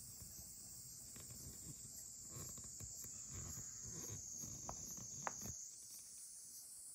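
Faint, steady high-pitched chirring of insects, with some low rumbling and two small clicks in the second half.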